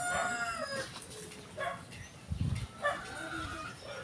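Rooster crowing: the long crow falls away in the first second, followed by shorter calls and clucks, with a dull low thump midway.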